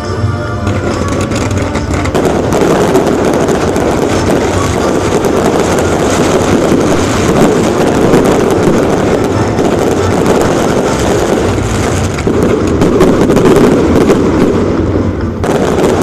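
Fireworks display going off in a dense, continuous barrage of bursts and crackling that grows louder after the first couple of seconds.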